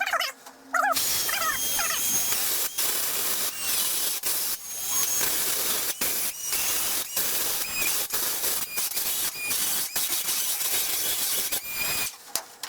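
A power tool cutting sheet metal with a blade: a dense hiss with thin high squeals, broken by short pauses. It starts about a second in and stops shortly before the end.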